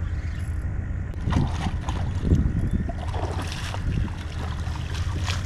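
A hooked flounder splashing at the surface of shallow water as it is reeled in, in irregular splashes over a couple of seconds in the middle. Wind rumbles on the microphone throughout.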